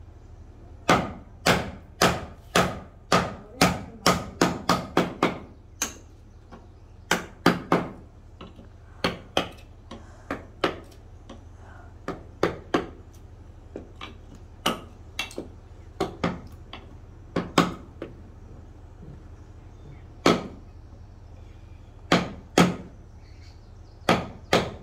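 Hammer striking a wood chisel as it cuts into a piece of wood: sharp knocks, a quick run of about a dozen in the first five seconds, then scattered strikes in small groups with short pauses.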